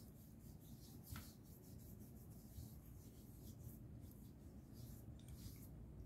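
Faint rubbing and patting of fingertips on facial skin, spreading a face serum, in short soft strokes over a low background hum.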